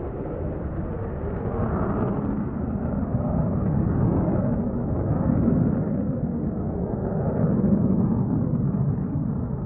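A vehicle engine running with a steady low rumble that swells a little in level.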